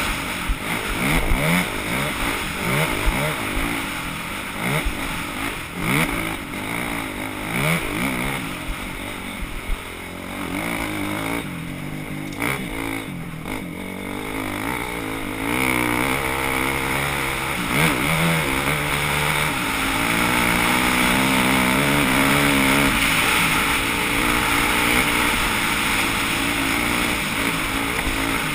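An off-road racing vehicle's engine revving up and down repeatedly under hard throttle. In the second half it holds a steadier speed for several seconds before revving again near the end.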